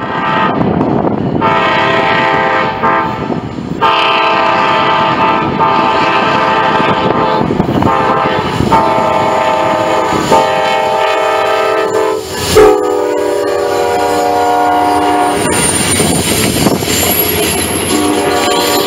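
Amtrak passenger train passing close at speed. The Genesis diesel locomotive's multi-chime air horn sounds two long blasts, a short and a long, the grade-crossing signal. The horn's pitch drops suddenly about two-thirds of the way through as the locomotive goes by, and then the passenger cars' wheels rumble and clatter steadily over the rails.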